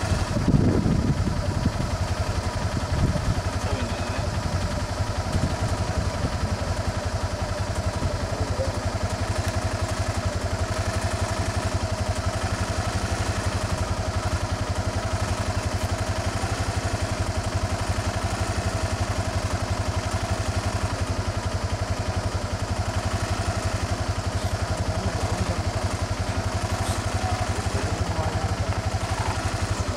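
A vehicle engine idling steadily, with a brief louder low rumble about a second in.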